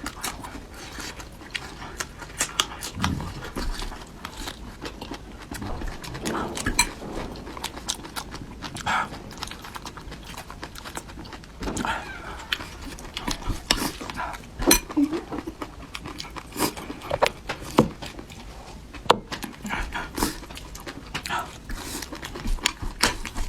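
Close-miked eating sounds: an irregular run of chewing, smacking and slurping clicks, with a few brief vocal noises.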